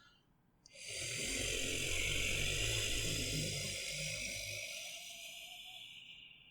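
Monster breathing sound effect: one long, hissing breath with a low rumbling growl in it, starting about a second in and slowly fading out near the end.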